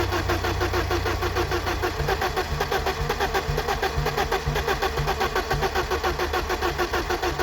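A 1995 BMW E34's starter motor cranking the engine in one long, even run, a quick steady churning rhythm, without the engine catching.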